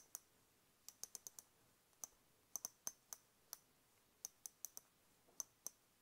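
Adjustment knob of an MSC Moto RM3 motorcycle steering damper turned by hand through its detents: a series of small, sharp clicks in uneven groups as the spring-loaded ball drops into each notch. The knob clicks cleanly with no crunch, freshly cleaned of the dirt that had made it stick.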